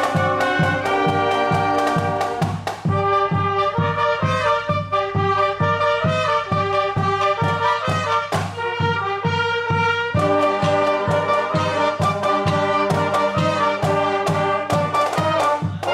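A small high-school band of saxophones, trombones, sousaphone and clarinets playing a tune over a steady drum beat.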